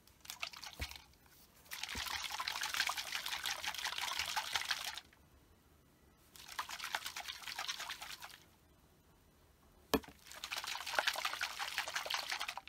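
Oil mixture with softgel capsules sloshing inside a plastic bottle as it is shaken by hand, in three long bouts after a brief first shake, with one sharp knock just before the last bout.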